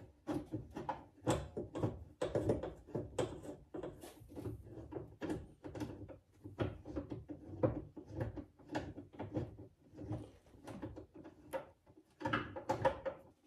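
A run of irregular clicks and knocks, a few each second, as car parts are handled and fitted.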